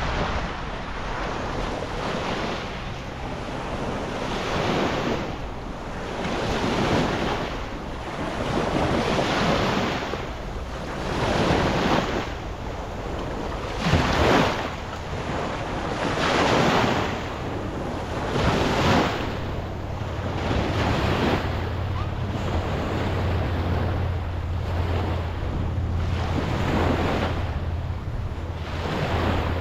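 Sea waves washing in repeated swells about every two seconds, with wind buffeting the microphone. A low steady hum, like a boat engine, grows stronger about two-thirds of the way through.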